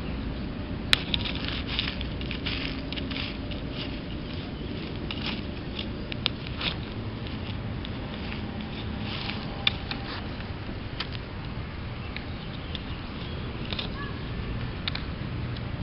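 Digging in park soil with a shovel to recover a detector target: irregular crunching and scraping of dirt, with a sharp click about a second in.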